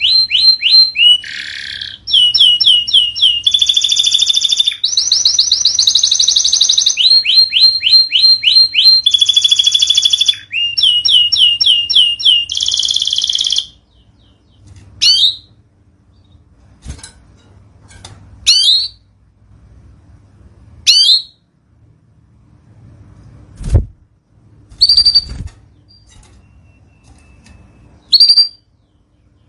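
Domestic canary singing a rapid song of fast repeated trills, switching to a new trill every second or two. About halfway through the song stops, and single short chirps follow every two or three seconds, with two low thumps among them.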